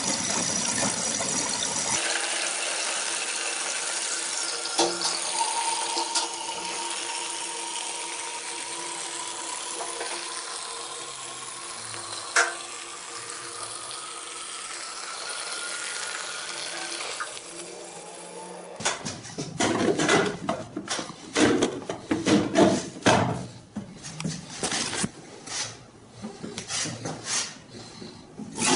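Toilet cistern refilling through its fill valve: a steady rush of water with a thin whistle that slowly rises in pitch as the tank fills, cutting off about 18 seconds in when the valve shuts. Then a run of irregular knocks and clatters as the ceramic cistern lid is handled and fitted.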